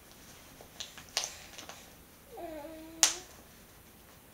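Plastic snap fasteners on a cloth diaper's wing being pressed shut: a couple of small clicks, then one sharp, louder snap click about three seconds in. Just before that loud click comes a short wordless vocal sound held on one pitch.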